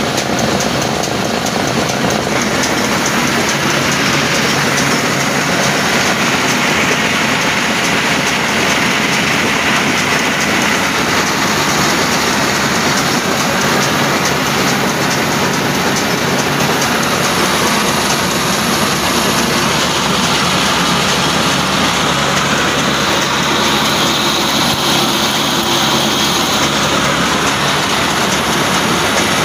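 Old Ruston Hornsby-style desi diesel engine running steadily under load, driving a flour mill through belts and a line shaft. Its even beat is mixed with the whirr of the grinder and the spinning pulleys.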